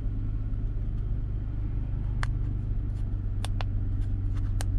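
Car engine idling steadily, heard from inside the cabin as a low hum. From about two seconds in, a series of light clicks from the buttons of a handheld OBD2 scanner being pressed.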